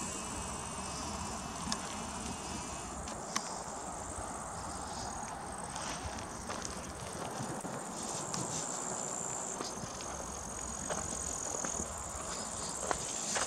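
Insects chirring steadily in long summer grass, a continuous high-pitched buzz, over a low rumble with a few sharp clicks.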